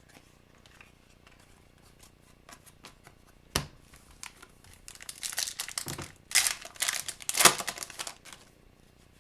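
Foil wrapper of a hockey card pack being torn open and crinkled. A sharp click comes a little over three seconds in, then a run of crackling rustles, loudest between about six and seven and a half seconds in.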